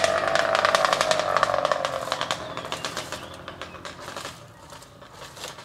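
Electric motor and gearbox of a radio-controlled scale crawler truck whining under load as it climbs over sticks and garden debris, with rapid clicking and clattering from the wheels and body. The whine falls slightly in pitch and fades over the last couple of seconds.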